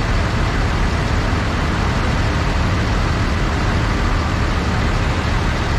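Big farm tractor diesel engines running, a steady loud low rumble.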